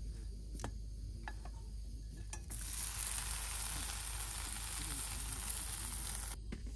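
Slice of buttered bread frying in a pan on a portable gas stove: a few light clicks of tongs against the pan, then about two and a half seconds in a loud sizzle as the buttered side goes down onto the hot pan, which cuts off suddenly near the end.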